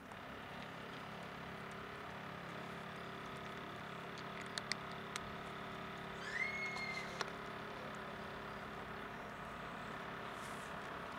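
A cat crunching dry kibble, with a few sharp crunches in the middle, over a steady low hum like distant traffic. A short high chirp rises and holds briefly about six seconds in.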